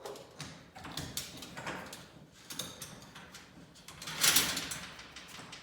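Scattered knocks and clicks of hardware and tools being handled, with one louder clatter about four seconds in that dies away over half a second.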